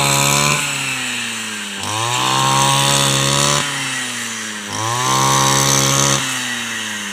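Brush cutter engine revving up and dropping back about every three seconds, its pitch climbing and sinking with each swing through the rice stalks.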